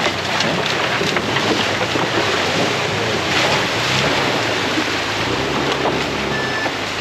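Toyota FJ Cruiser driving through a shallow muddy creek, its tyres splashing and churning through water and mud, with the engine's low hum showing more plainly in the second half as it passes.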